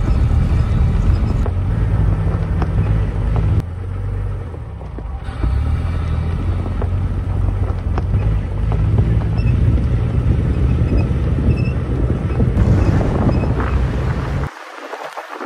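Jeep Wrangler LJ driving on a dirt forest road: a steady low rumble of engine, tyres and wind, changing abruptly at edits. Near the end the low rumble cuts out, leaving a thinner, crackly noise.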